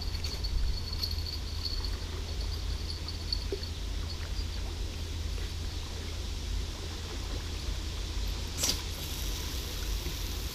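Outdoor ambience: a steady low rumble, with a high chirping that fades after the first few seconds, and one short, sharp sound near the end.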